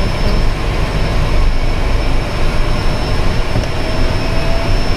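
Pilatus PC-6 Porter's turbine engine and propeller running, heard from inside the cockpit: a dense, steady rumble under a high, steady turbine whine. A faint tone slowly rises in pitch in the second half.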